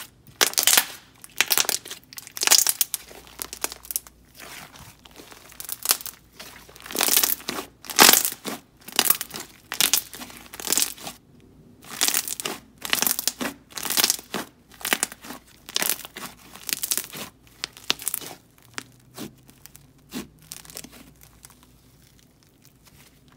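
Elmer's Unicorn Fluffy slime, a glossy stretchy slime, being squeezed and pressed by hand, giving repeated wet clicks and crackly bubble pops about twice a second, with a short lull about halfway through and softer pops near the end.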